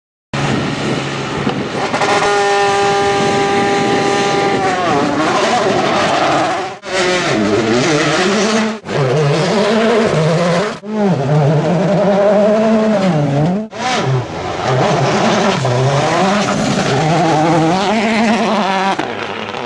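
World Rally Car's 1.6-litre turbocharged four-cylinder engine at full effort. It holds one pitch for a couple of seconds, then rises and falls again and again as the car accelerates and brakes through the gears. Several short sharp drops break the sound.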